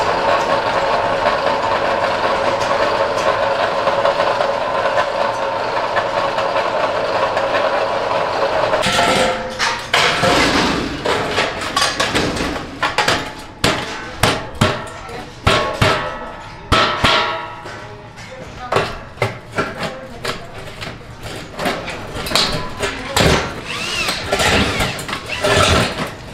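Roller beading machine running steadily as it turns a stainless-steel tandoor drum, a continuous metallic drone that stops abruptly about nine seconds in. It gives way to irregular metal knocks and taps as the top ring is fitted onto the drum.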